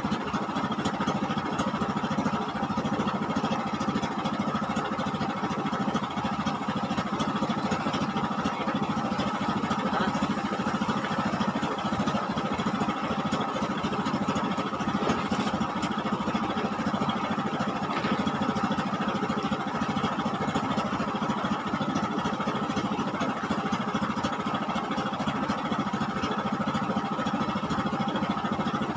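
An engine running steadily at a constant speed, its hum unchanging throughout.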